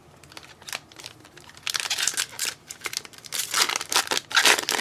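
Plastic trading-card pack wrapper crinkling and tearing as it is opened by hand: a few light clicks at first, then steady crackling from about two seconds in.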